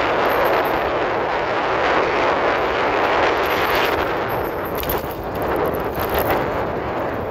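Loud, steady wind rushing over a phone's microphone on an open electric ride at speed.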